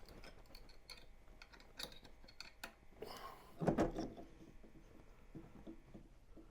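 Faint light clicks and scrapes of a hex key working a small screw, with a short breathy exhale and a brief low hum from the person about three and a half seconds in.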